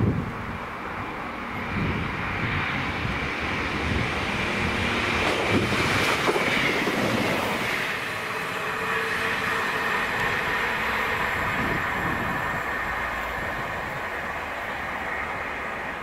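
Class 158 diesel multiple unit running through the station without stopping: diesel engine and wheels on the rails build to their loudest as it passes, about six seconds in, with wheel clicks over the rail joints. A high whine drops in pitch as it goes by, then the sound slowly fades as the unit draws away.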